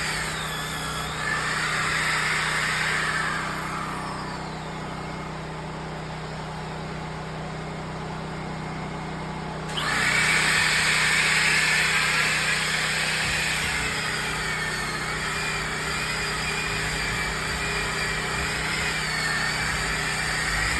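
Electric sander running against a log wall, with a steady whine. It drops away a few seconds in, then comes back on suddenly about ten seconds in and runs steadily.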